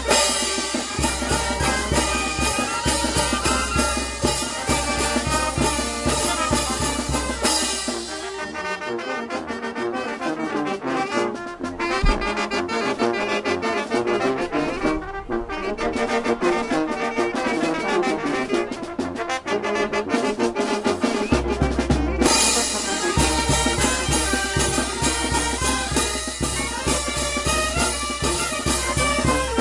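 Brass band playing, with trumpets, trombones and drum. From about 8 s to about 22 s the deep bass and drum drop away, leaving the horns, then come back in.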